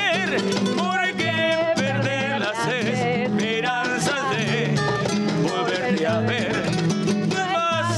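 Upbeat Latin dance music, salsa-like, with a singing voice over a moving bass line.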